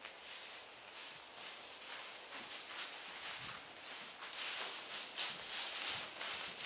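Hooves and human footsteps rustling and crunching through deep straw bedding as a foal and a person move about, an uneven patter of steps that grows louder about halfway through.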